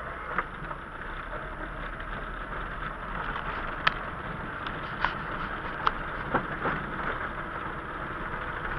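Inside a car moving on a wet road: steady tyre and road noise, with scattered sharp clicks and knocks, the loudest about four seconds in.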